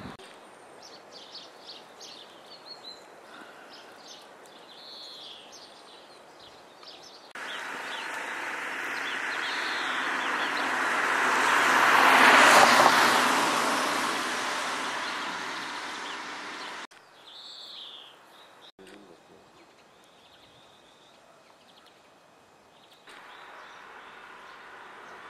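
Small birds chirping, then a passing vehicle: a rushing noise that swells for about five seconds to a peak and fades again, cut off suddenly about seventeen seconds in. A few more bird chirps follow.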